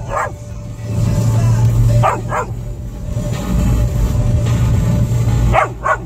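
Golden retriever barking in short bursts: one bark at the start, two quick barks about two seconds in, and two more near the end, over the steady low rumble of the car cabin.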